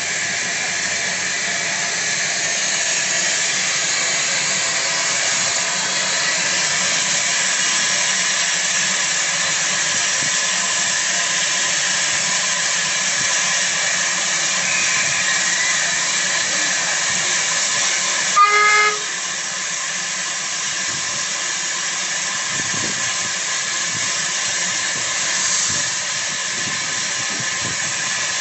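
Steam locomotive hissing steadily, with one short whistle note about two-thirds of the way through.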